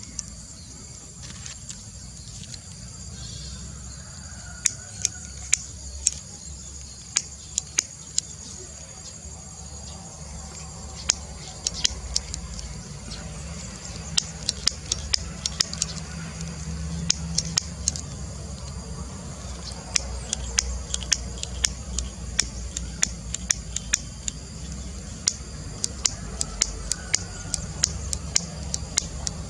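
Outdoor nature ambience: a steady high insect-like drone over a low rumble, broken by many short sharp ticks scattered irregularly, more frequent in the second half.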